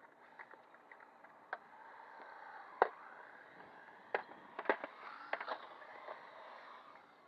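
Radio-controlled model cars running on a concrete skate ramp: a faint, wavering motor whine and the rattle of tyres rolling over the concrete. Several sharp knocks cut through it, the loudest about three seconds in and a quick cluster between about four and five and a half seconds.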